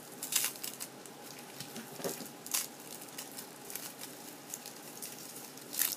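Dried straw wrapper of a small sweet crinkling and crackling as it is handled and opened by hand, in short bursts, loudest just after the start and near the end.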